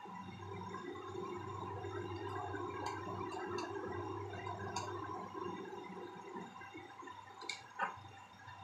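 Battery-powered light-up toy bus running in the hand: a steady buzzing whir from its small motor and gears. A few light clicks, and one sharper knock near the end.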